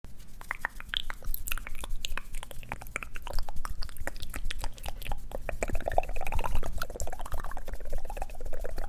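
Close-miked chewing of crunchy ice plant and sea grapes: a dense, irregular run of sharp crunches and small wet pops as the leaves and beads burst between the teeth.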